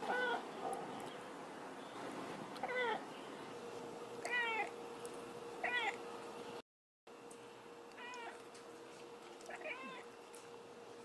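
Domestic cat giving a series of short meows, each rising and then falling in pitch, about one every second and a half. The sound drops out briefly partway through.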